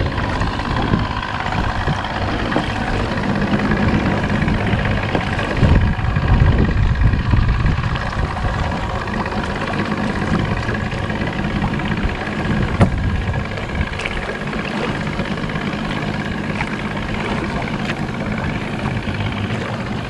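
Outboard motor on a small aluminium fishing boat running steadily at low speed, a continuous low drone with a faint steady whine, swelling louder for a couple of seconds about six seconds in.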